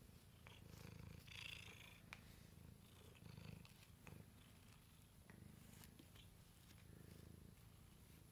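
Domestic cat purring softly while being brushed, the purr swelling and fading with each breath. A short scratchy rustle of the pin brush's bristles through the fur comes about a second and a half in.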